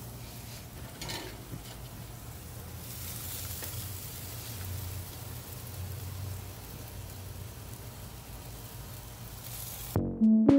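Sauce-basted steaks sizzling on a grill: a steady hiss with a low hum beneath. Electronic music with a beat cuts in suddenly near the end.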